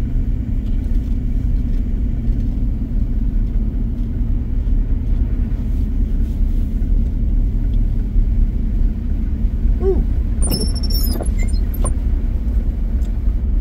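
Steady low rumble inside a pickup truck's cab as it coasts at about 27 mph on a snow-covered road, its mud-and-sand tires running on snow. A brief high squeaking chirp comes about ten seconds in.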